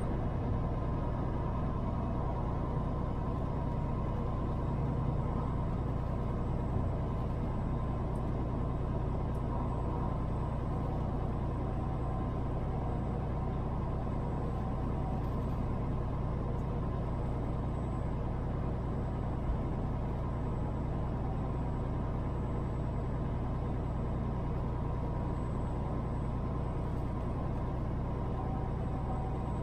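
Semi truck driving at a steady speed: a constant low engine drone with road and tyre noise, heard from inside the cab.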